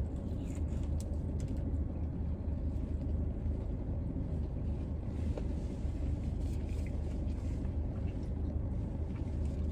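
Steady low hum of a parked car running, heard inside the cabin, with a few faint clicks and rustles as a wrapped sandwich is handled.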